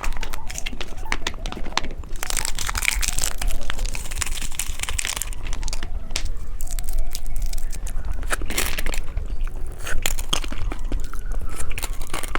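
Plastic candy packaging crinkling and rustling as it is handled, with scattered sharp clicks and taps.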